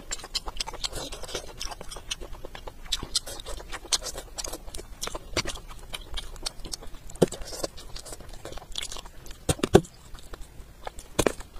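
Close-miked chewing and biting of cooked fish: a steady run of wet mouth clicks and small crunches. A few louder, sharper clicks stand out about seven, ten and eleven seconds in.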